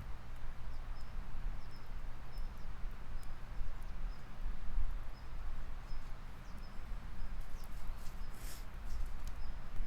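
Riverside outdoor ambience: a steady low rumble of wind or moving water, with a bird's short high chirp repeating about once a second. A few sharp clicks come through, one louder near the end.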